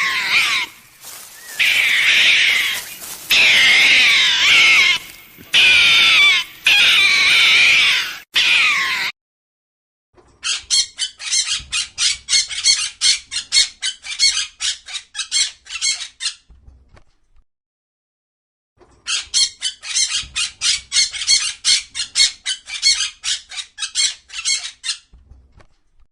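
Animal calls: a dense, high-pitched, wavering chatter for about nine seconds, then two runs of rapid repeated chirps, about four a second, each lasting around six seconds.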